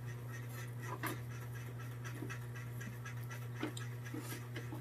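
A steady low hum with a few faint clicks and light knocks from people eating by hand at a table.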